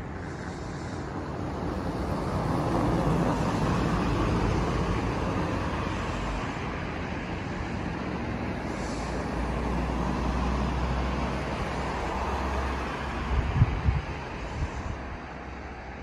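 Road traffic passing: the noise of vehicles swells and fades twice, with a low rumble under the second pass. A few low thumps come near the end.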